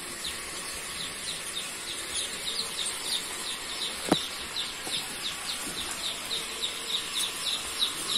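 A large flock of joper chicks in a brooder, peeping continuously: many short, high, falling cheeps overlapping several times a second. A single sharp click sounds about four seconds in.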